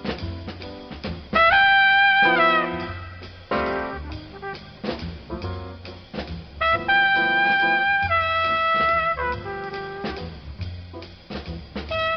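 Background jazz music with long held horn notes over a drum kit and bass.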